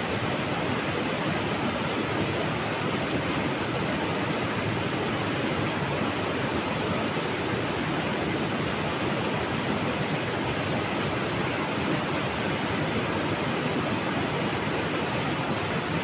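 Rushing river water flowing over rocks: a steady, unbroken rush.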